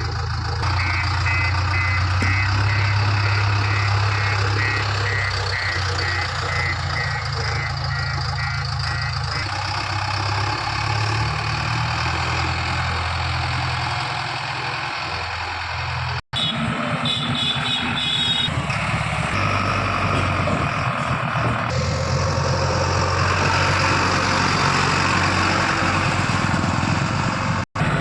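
JCB 3DX backhoe loader's diesel engine running steadily, with a reversing alarm beeping repeatedly over the first third and a shorter run of higher beeps later. The sound cuts out for an instant twice.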